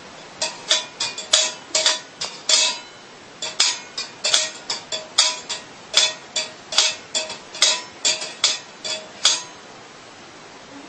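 Stainless steel cat bowl clinking and ringing in its wire stand as a cat licks and pushes at it, about three quick irregular clinks a second, stopping near the end. The bowl is empty.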